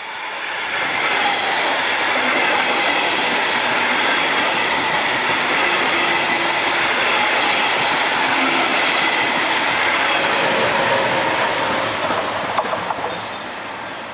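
Double-deck Regional Express push-pull train, pushed by a DB class 146 electric locomotive, passing close by: a rush of wheels on rail that swells over the first second or so and stays loud and steady for about ten seconds. Near the end come a couple of sharp clicks, then the noise fades as the train moves away.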